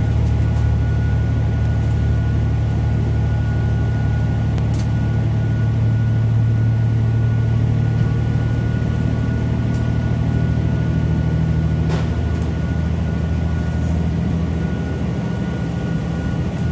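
KiHa 48 diesel railcar's engine under power as the train pulls away from a station, heard from inside the passenger car: a steady low drone with a thin constant whine above it. Two faint clicks come about a third of the way in and again past the middle.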